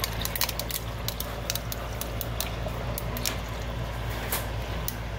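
Irregular sharp clicks and crackles, a few to several a second, over a steady low hum.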